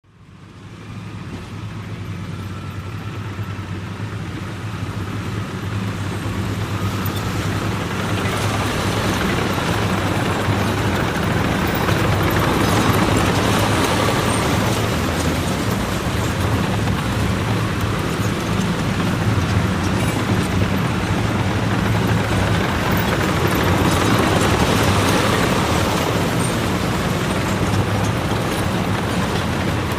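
A column of military tanks passing by: a deep, steady rumble of engines and running gear that fades in from silence at the start and builds over the first several seconds, swelling loudest about halfway through and again near the end.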